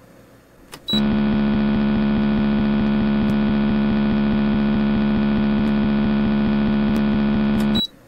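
Electric motor sound effect: a steady, loud hum rich in overtones that switches on with a click about a second in and cuts off with a click near the end, as the three-phase induction motor is started with the start button and stopped with the stop button.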